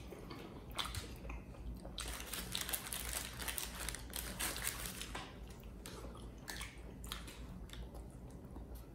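Close-up chewing and biting of fried chicken wings and fries: irregular wet crunching and mouth clicks, busiest a couple of seconds in.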